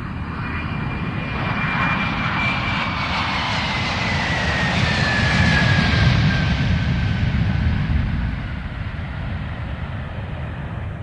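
Jet aircraft passing by: engine noise swells to its loudest about six seconds in and then fades, with a high whine that slides steadily down in pitch.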